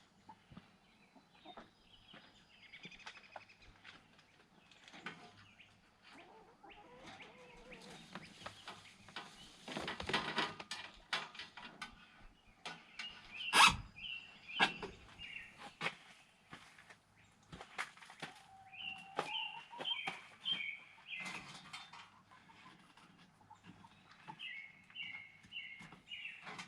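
Birds chirping in short runs of quickly repeated high notes, over scattered clicks and rustling, with one sharp knock about halfway through.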